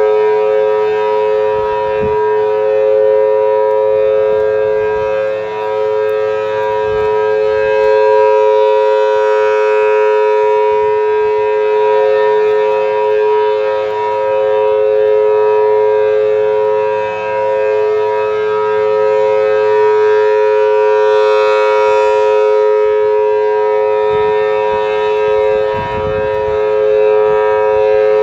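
Federal Signal Thunderbolt 1000T tornado siren sounding a steady tone: a loud, level chord that neither rises nor falls in pitch. Its loudness dips briefly every several seconds.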